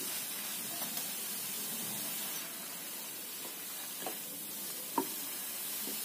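Grated apple sizzling in a hot flat pan: a steady hiss, with a few light taps and scrapes as a wooden spatula stirs it.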